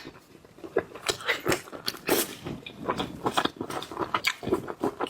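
A person chewing and biting whelk meat, with many quick, irregular mouth clicks and smacks.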